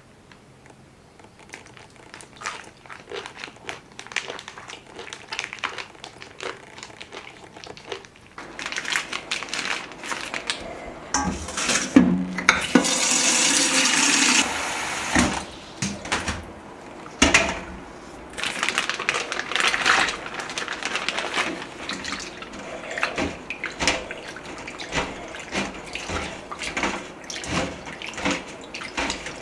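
Water splashing in a kitchen sink as something is rinsed and handled, with clatters and clicks. The tap runs full for a couple of seconds around the middle. The first few seconds hold only light handling clicks.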